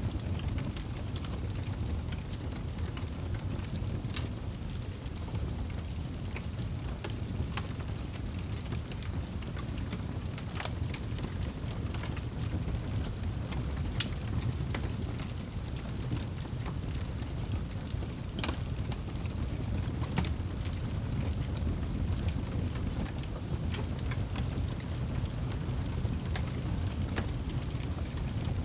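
Wood fire burning in a fireplace: a steady low rumble of flames with scattered sharp crackles and pops, the strongest at about 10, 14 and 18 seconds in.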